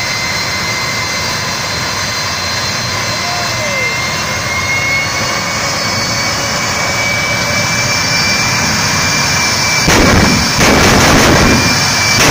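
Jet truck's jet engine running with a steady high whine that slowly rises in pitch. About ten seconds in it suddenly gets much louder and rougher, with crackling pops.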